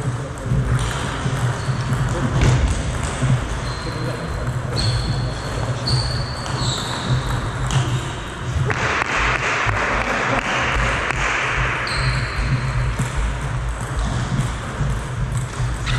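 Table tennis: the plastic ball clicking off the table and the players' rubber bats as points are played, with brief high pings from the ball.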